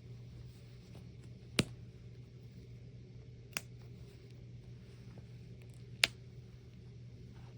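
Steady low electrical hum with three short, sharp clicks a couple of seconds apart.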